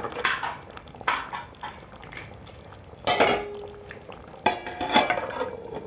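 Metal ladle scraping and clinking against a metal kadai while stirring chicken curry gravy, in several short, irregular strokes.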